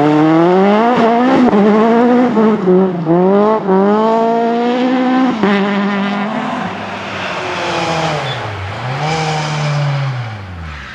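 Citroën C2 rally car's engine revving hard as it accelerates away, its pitch climbing and dropping back at each of several upshifts. Later the engine note grows fainter, with one more drop and climb in pitch near the end.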